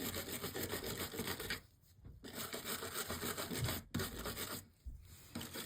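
Fast scratchy scrubbing of lead came joints with a wire brush, cleaning off contaminants before soldering, with two short pauses about two seconds in and near the end.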